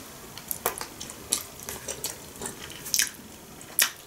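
Close-up wet chewing and lip smacking while eating a sushi roll, with irregular short wet clicks every half second or so.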